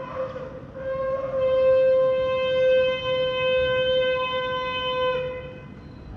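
Ram's-horn shofar sounding one long, steady blast on a single note, with a rough start that swells about a second in and fades out near the end.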